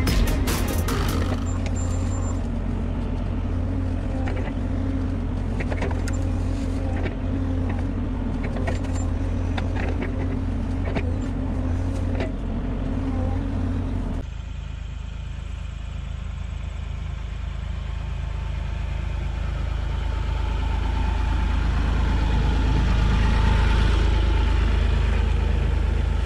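Diesel engine of a Bobcat E42 mini excavator running steadily while it pulls brush, with a scatter of sharp cracks and clicks over the first half. The sound changes abruptly about halfway through to a smoother engine sound that grows louder toward the end.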